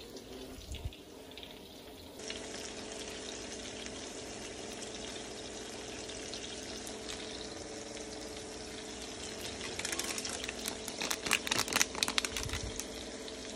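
Breadcrumb-coated chicken pieces sizzling in oil in a frying pan: a steady hiss from about two seconds in, over a faint steady hum. A run of sharp crackles and clicks comes near the end.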